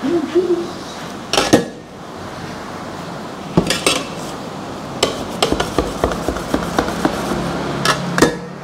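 Stainless steel bench scraper clacking against a table top as it is pressed down through rolled dough: a handful of sharp, irregular metal clicks and knocks.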